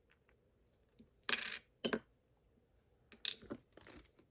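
Small metal lock parts (pins, springs, plug and follower) clinking as they are dropped onto a tray, in three short clatters, the loudest near the end.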